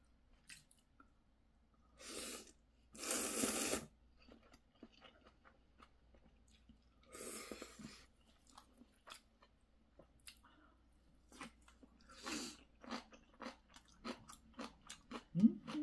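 Close-miked mukbang eating: instant ramyeon noodles slurped in two loud sucks a couple of seconds in and another about halfway, then steady chewing with many small wet clicks and crunches.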